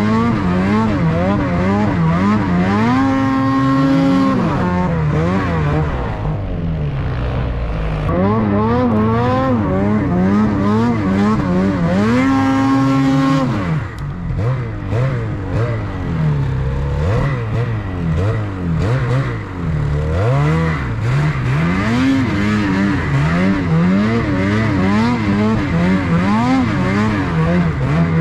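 Ski-Doo snowmobile engine revving up and down constantly as the rider works the throttle through deep powder. It is held at high revs for a second or so, about three seconds in and again about twelve seconds in.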